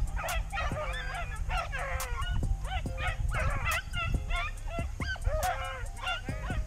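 A pack of rabbit-hunting dogs baying and yelping in many overlapping calls, the hounds giving voice while they run a rabbit.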